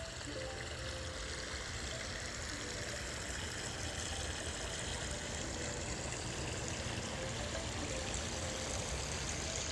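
Steady outdoor rushing noise with a low rumble, even throughout, from the lakeside ambience.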